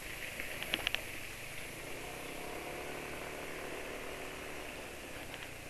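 Motor scooter riding along at a steady speed: a low, even engine hum with road and wind noise. A few brief high-pitched chirps come about a second in.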